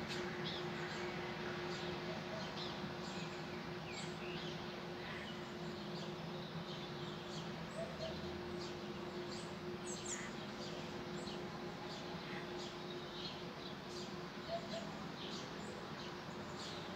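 Small birds chirping on and off, short high calls scattered throughout, over a steady low mechanical hum.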